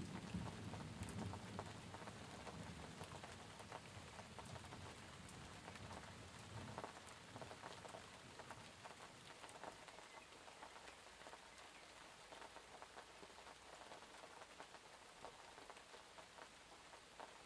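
Quiet, steady rain pattering on surfaces as a fine patter of drops. The tail of a low thunder rumble dies away over the first few seconds.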